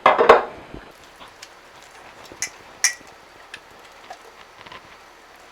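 Light scattered clicks and taps of a utensil against a mixing bowl as thick pancake batter is poured and scraped into a baking dish, after a short loud knock at the start.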